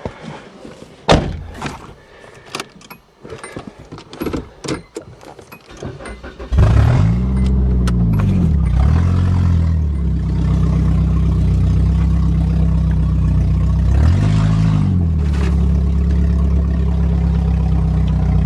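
Scattered clicks and knocks, then about six and a half seconds in the Toyota Cressida's engine catches and starts after failing to start. It is revved up and down three times and settles to a steady idle.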